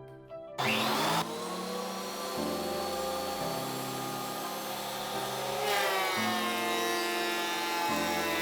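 Background music: sustained synth chords over a bass that steps between held notes, with a whooshing sweep about half a second in.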